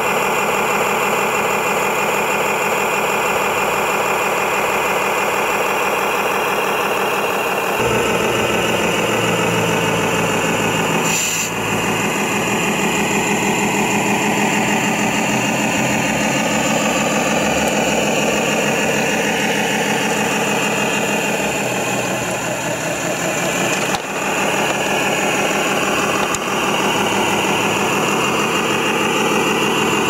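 Engine sound of a radio-controlled MAN tractor truck pulling a low-loader trailer, running steadily; about eight seconds in a deeper note comes in and the pitch then rises and falls as it drives.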